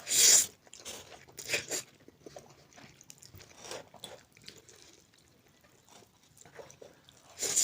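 Close-up eating sounds of spicy noodles being eaten: chewing and mouth noises with a few short, loud bursts. The loudest comes at the very start and another near the end.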